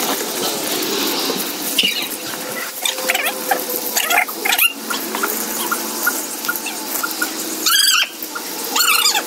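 Garden hose water running and splashing on a wet concrete floor, with short, high squeaky chirps from time to time and two louder ones near the end.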